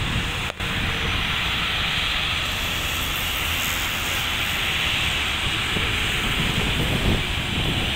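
Jet engines of an Air India Airbus A320-family airliner running on the runway: a steady rushing hiss with a low rumble.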